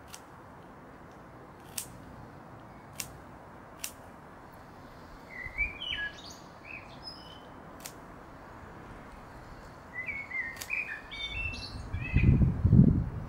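A garden songbird singing in two short bursts of quick chirping phrases, with three sharp snaps early on as bluebell stems are picked by hand. Near the end, loud close rustling and bumping as the picked bunch of bluebells is handled next to the microphone.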